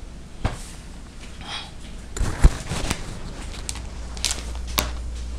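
Handling noises around a fibreglass pontoon shell and its mould: scattered clicks, taps and rustles, with a sharper knock about two and a half seconds in.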